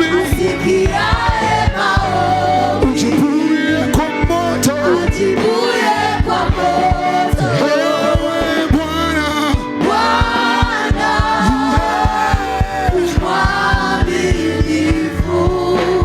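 Gospel praise and worship song: singers carrying the melody over a band with a steady drum beat.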